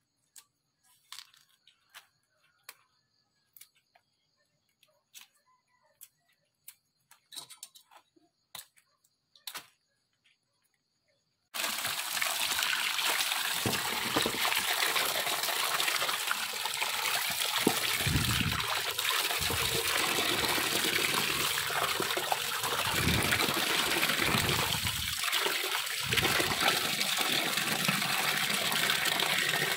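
Cassava peel crackling and snapping in small, scattered clicks as it is stripped off the roots by hand. About a third of the way in, water suddenly gushes into a plastic basin over the peeled cassava roots and keeps pouring and splashing steadily.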